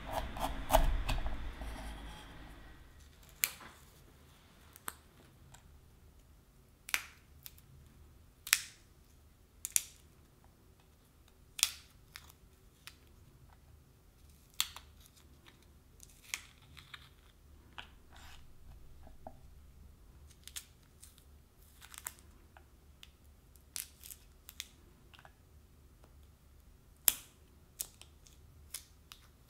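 A kitchen knife cuts through a raw chestnut's hard outer shell against a wooden cutting board. After that come sharp, irregular snaps and crackles, every second or two, as the shell is pried and peeled off with the fingernails.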